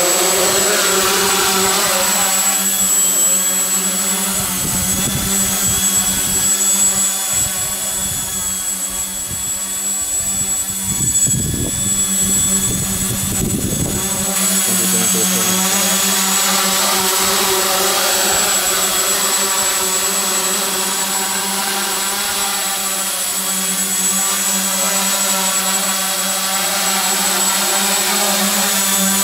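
Tricopter's three brushless motors and propellers running in hover: a steady buzzing drone at a constant pitch with a thin high whine above it. Gusty low rumbles come and go in the middle stretch.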